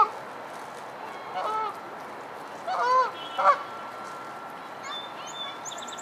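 Canada geese honking: a short honk about a second and a half in, then a louder pair of honks around three seconds in. These are aggressive calls between two geese squabbling, one stretching its neck low toward the other.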